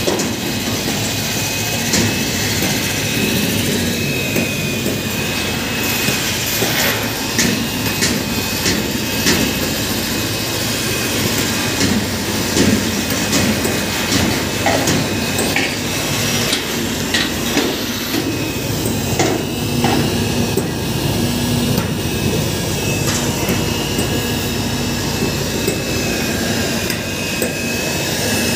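Electric seaming machine running along the standing seam of curved steel arch-roof panels, its rollers crimping the joint together. A steady high motor whine, with irregular clicks and knocks of sheet metal throughout.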